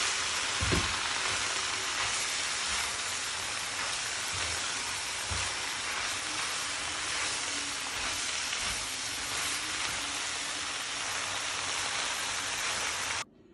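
Noodles and vegetables sizzling in a hot nonstick wok as they are turned with tongs: a steady hiss with a few soft low knocks of the tongs against the pan. It cuts off suddenly near the end.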